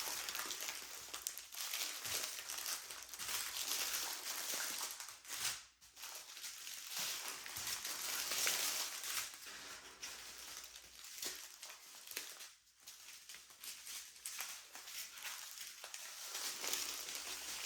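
Plastic packaging of diamond-painting drill bags crinkling as it is handled and opened, a continuous crackle with brief pauses about six seconds and about thirteen seconds in.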